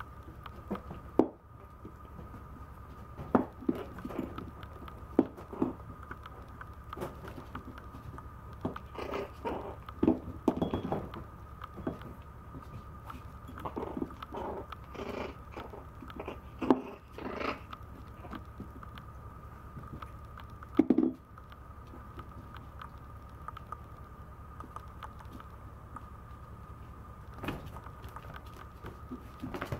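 A small ceramic dish knocking and clattering on a vinyl floor as a Maltese puppy paws at it and bites its rim: irregular knocks and scrapes, a few much louder than the rest. A faint steady high whine runs underneath.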